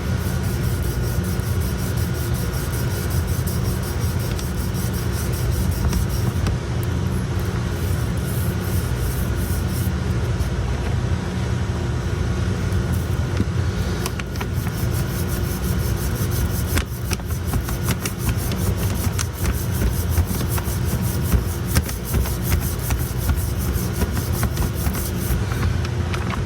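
An abrasive block rubbed back and forth over a ground repair spot on a hard-chrome-plated press cylinder, bringing the spot just below the original surface before plating. The strokes are rapid and scratchy. Under them runs a steady low machine rumble with a faint hum.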